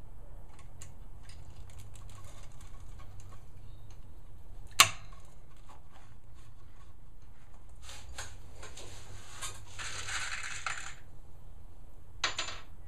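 A locking C-clamp is worked on a wooden frame, with small handling clicks and one sharp metallic snap of the clamp a little under five seconds in. Later comes a few seconds of rustling, then a brief clatter of small hardware near the end.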